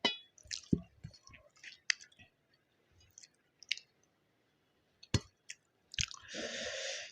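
Close-miked mouth sounds of eating biryani with gravy: wet chewing with sharp smacks and clicks at irregular intervals. Near the end comes a breathy rush lasting under a second.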